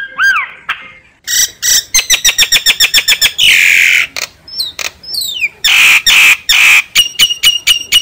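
Myna singing a varied song: a fast run of clicking notes, then harsh screeches with a few falling whistles between them, and another quick ticking run near the end.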